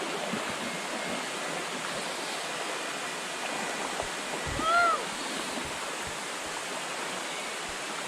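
River water and a waterfall rushing steadily. About halfway through comes one short, louder rising-and-falling call.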